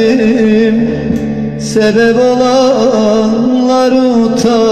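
Turkish song: a voice sings long, wavering held notes over instrumental backing, in two phrases with a short break about a second and a half in.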